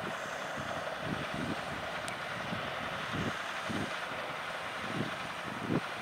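John Deere 6R 215 tractor engine running steadily under load while pulling a plough through the soil, with wind buffeting the microphone in low, irregular gusts.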